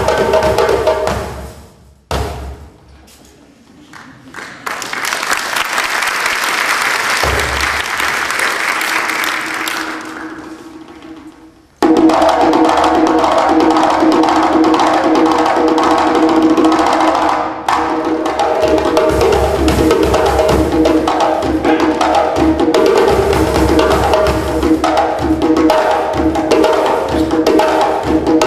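Djembe drumming that stops about a second and a half in, followed after a short quiet gap by several seconds of audience applause. After a sudden cut, two djembes play together, loud and steady, to the end.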